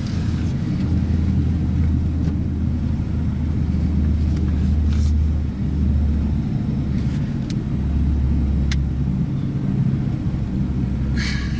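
Vehicle running, a steady low rumble of engine and road noise, with a few brief clicks in the middle.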